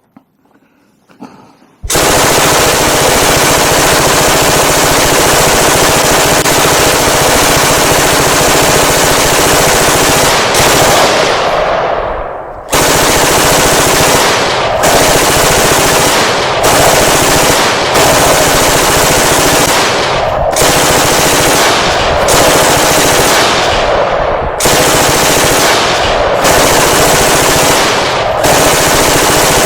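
Sustained machine-gun fire in long bursts with short pauses, the recorded real-gun firing sound effect of a Huaze M249 gel blaster, starting about two seconds in.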